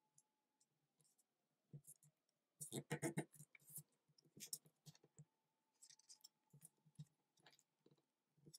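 Origami paper being folded and creased by hand: faint crinkles and light clicks of paper under the fingertips, with a short cluster of louder rustling about three seconds in.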